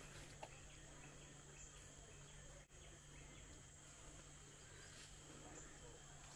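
Faint, steady, high-pitched drone of tropical forest insects, with a low hum beneath.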